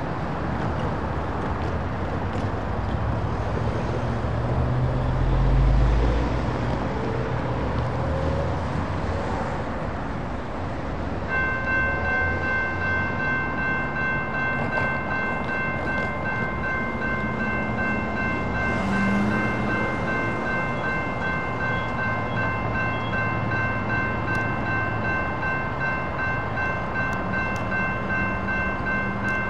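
Road traffic passing, with one vehicle going by close about five seconds in. About eleven seconds in, a railroad crossing warning bell starts ringing and keeps ringing steadily as the crossing signals activate.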